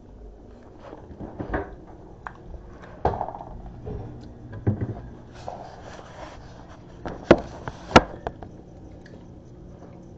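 Handling noise from a camera being picked up, carried and set down on a countertop: a string of knocks and rubbing, the two sharpest knocks about seven and eight seconds in.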